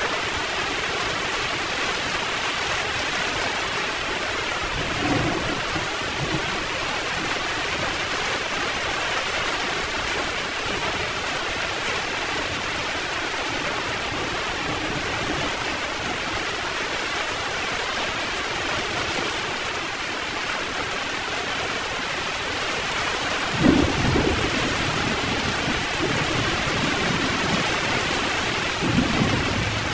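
Heavy rain falling steadily, with thunder rumbling: a soft roll about five seconds in, a louder sudden clap about three-quarters of the way through, and another roll near the end.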